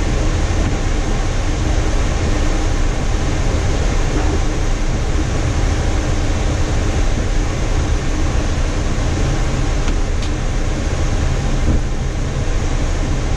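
Steady cockpit noise of a Boeing 737-800 with its CFM56-7B engines running at idle during taxi: a low rumble under an even hiss of air.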